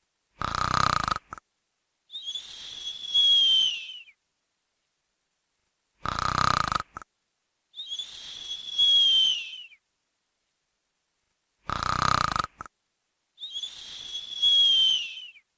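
Snoring sound effect: a short rattling snore on the in-breath, then a longer out-breath with a high whistle that drops in pitch at its end. The cycle repeats three times, about every six seconds, with silence between.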